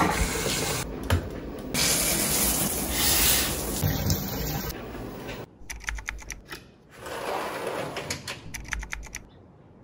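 Shower running, water spraying down onto a bathtub floor, then a quick run of light clicks and taps.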